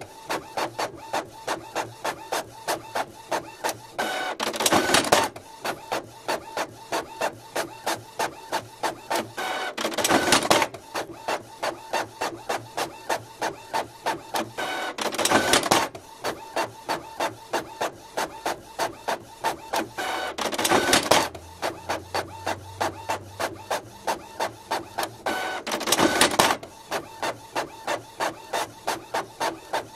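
Printer printing fast: a steady run of mechanical ticks, about four a second, with a louder rushing burst about every five to six seconds.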